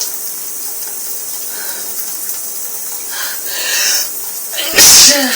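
Shower water spraying steadily, then a breathy build-up of about a second and one loud, sudden sneeze near the end, part of a sneezing fit brought on by a heavy head cold.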